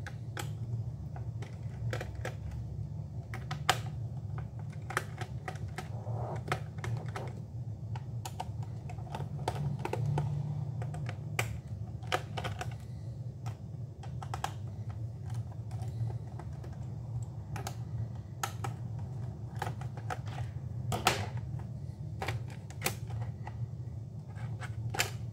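Scattered plastic clicks and taps as the bottom access cover of an HP Pavilion Entertainment PC laptop is worked loose and lifted off by hand. A steady low hum runs underneath.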